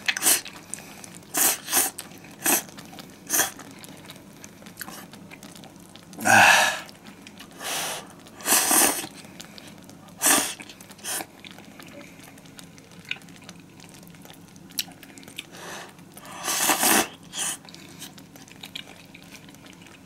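A person eating instant ramen noodles from a hot pot: chewing, with several short noisy slurps spaced through.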